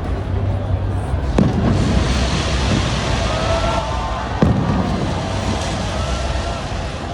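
New Year aerial fireworks going off: two sharp bangs, about one and a half seconds and four and a half seconds in, over a steady crackle and fizz of bursting shells.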